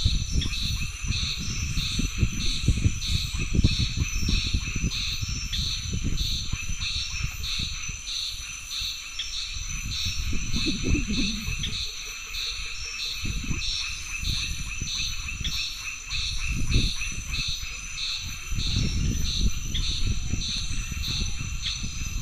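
Insects calling in a natural setting: a high steady buzz with a pulsing chirp that repeats a little more than once a second. A low rumbling noise rises and falls underneath.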